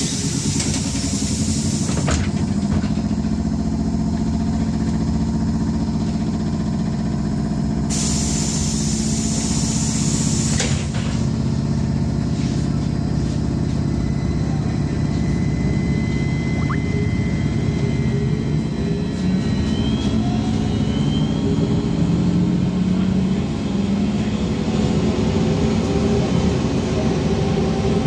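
Ride noise inside a VMZ-5298.01 trolleybus under way: a steady hum from the drive and road, with two bursts of high hissing, one near the start and one about eight seconds in, and a faint rising whine about twenty seconds in.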